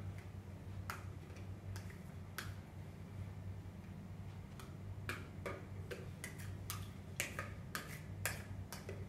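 Plastic toy kitchen utensils clicking and tapping against a clear plastic container: irregular sharp clicks, few at first and more frequent in the second half, over a steady low hum.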